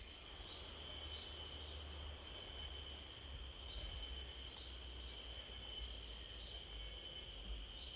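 Tropical forest ambience: insects keep up a steady high-pitched drone on several pitches at once, with a few short bird-like chirps near the middle, over a low rumble.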